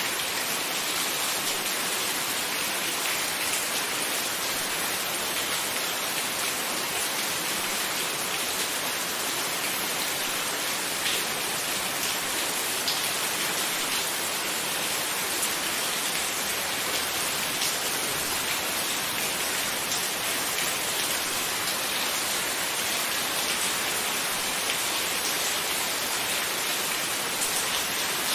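Steady rain, an even hiss with a few faint drop ticks scattered through it.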